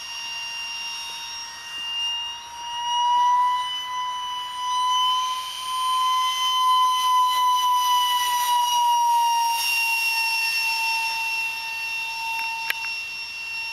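Radio-controlled model aircraft's motor giving a steady high whine as the plane flies around. Its pitch creeps up over the first few seconds and drops back about ten seconds in, and its loudness swells and fades as the plane moves about.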